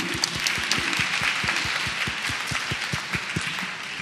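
Audience applauding, with one person's claps close to the microphone standing out as sharp strokes about four a second; the applause starts to die away near the end.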